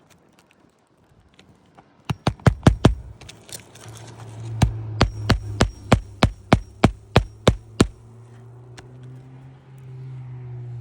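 Roofing fasteners being driven back into asphalt shingles: a quick run of about six strikes, then a steady run of about a dozen strikes at roughly three a second, over a low steady hum.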